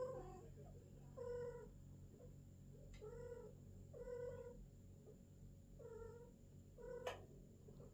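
Cat yowling during mating, in six short, repeated, pitched calls about a second apart. A sharp click comes near the end.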